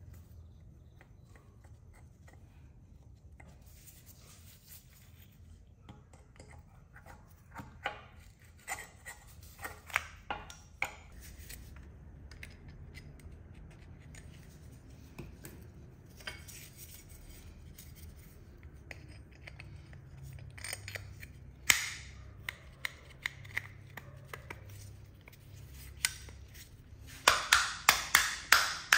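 Small metal engine parts of a two-stroke brush cutter (crankcase halves, bearing, crankshaft and piston) being handled and fitted on a metal workbench: scattered light clicks and knocks, ending in a quick run of sharp clicks.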